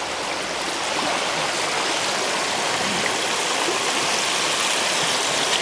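Steady rushing of a shallow rocky stream flowing over stones.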